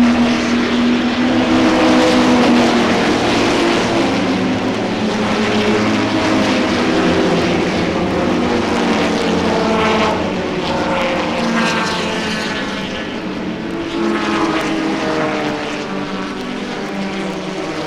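Many racing car engines running at once as the field accelerates away from a standing start. Engine notes rise in pitch as cars rev through the gears, loudest at first and easing off a little near the end.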